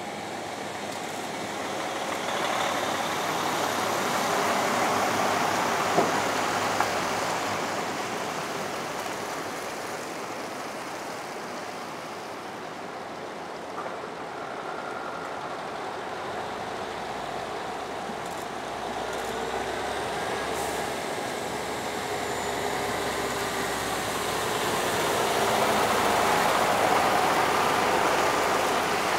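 Heavy-haul truck tractor units towing Shinkansen cars on multi-axle trailers pass slowly, engines and tyres running. The sound swells loudest about five seconds in and again near the end, with a couple of short clicks around six seconds in.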